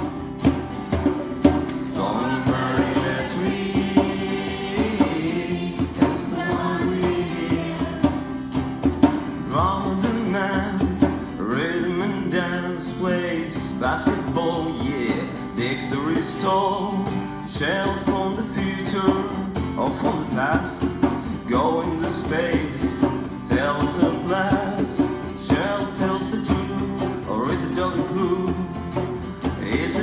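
A group of voices singing a song to strummed acoustic guitar and hand-played djembe drum beats.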